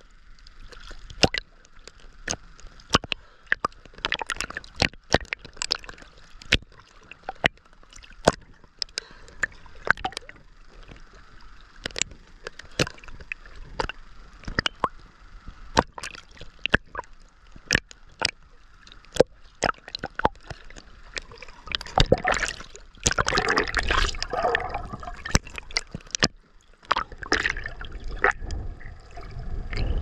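Small ocean waves lapping and slapping against a waterproof camera held at the water's surface, as irregular sharp splashy clicks. About two-thirds of the way through a louder gurgling wash comes over it. Near the end the camera goes under, and the sound turns to a low muffled rumble.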